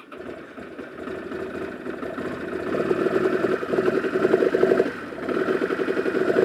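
Ducati 750SS's air-cooled 90-degree V-twin being started and running at a cold idle. The engine's beat builds over the first few seconds into a strong, even pulse, dips briefly about five seconds in, then picks up again.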